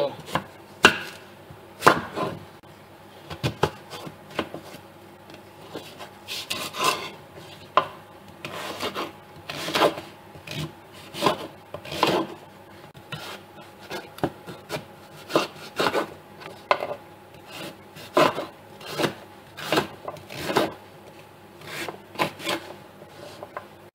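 Kitchen knife cutting raw sweet potato into small cubes on a wooden cutting board: irregular single cuts about one a second, each ending in a knock of the blade on the board.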